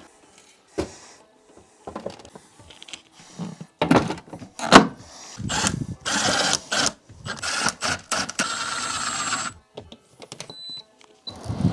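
Plastic window air conditioner being fitted back into a window frame: knocks, clunks and scraping of its plastic housing, with a long stretch of sliding, rubbing plastic in the middle. Near the end come two short high beeps, the unit's power signal as it is plugged in.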